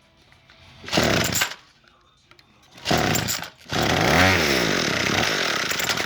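Troy-Bilt two-stroke string trimmer being pull-started cold: two short bursts as the starter cord is pulled, then the engine catches about four seconds in, runs for two seconds with its revs rising and falling, and dies at the end.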